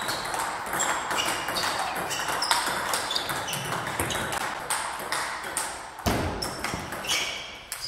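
Table tennis balls striking bats and tables in a quick, irregular stream of overlapping pings and clicks from rallies on more than one table.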